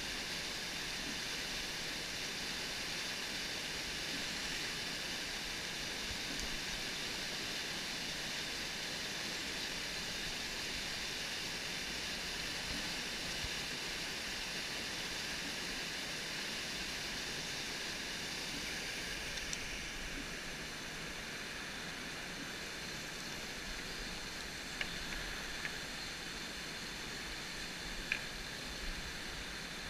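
Rushing whitewater of a mountain torrent pouring over and between boulders: a steady, even rush of water, a little softer in the last third. A few faint clicks near the end.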